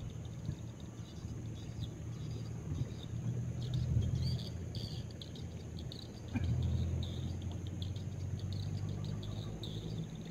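Insects chirping in irregular high-pitched trills over a low steady hum, with a single knock about six seconds in, after which the hum is louder.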